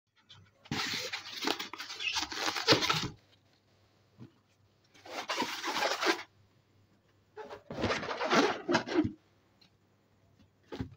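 Latex balloons being handled and rubbed, in three separate bouts of crackly rustling of rubber, each lasting about two seconds, with short pauses between them.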